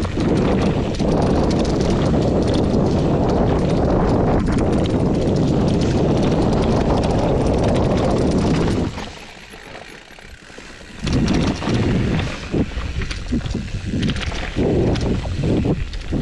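Mountain bike riding down a dirt singletrack: wind rushing over the microphone and tyres rolling on dirt, dropping away for about two seconds midway, then uneven knocks and rattles as the bike goes over rough, rocky ground.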